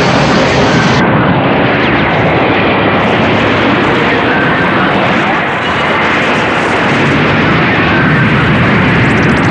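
Loud, steady roaring noise with no clear beat or melody.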